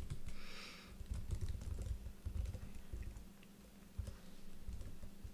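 Laptop keyboard being typed on: irregular key clicks with dull thuds, and a short hiss about half a second in.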